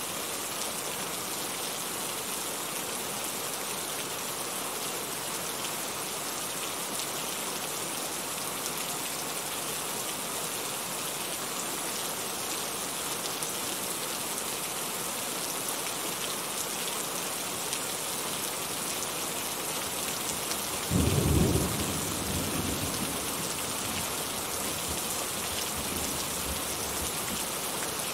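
Steady rain falling. Late on, one sudden low rumble of thunder, loudest for about a second and then fading over the next few seconds.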